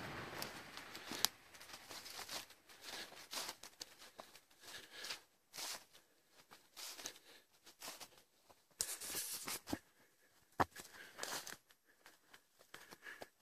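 Footsteps rustling and crunching through dry grass and dead leaves, in uneven bursts, with a couple of sharp clicks.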